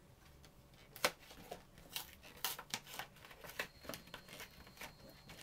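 Packaging being handled and unwrapped by hand: a string of irregular clicks, taps and crinkles, the sharpest about a second in.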